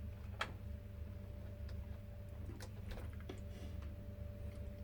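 A few faint, scattered clicks of multimeter test probes tapping on metal terminals, over a low steady hum.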